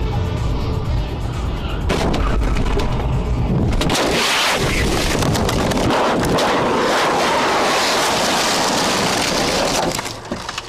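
Dashcam audio of a motorway collision: a car running with low road rumble, several sharp knocks about two seconds in, then a loud, even noisy roar from about four seconds that fades near the end.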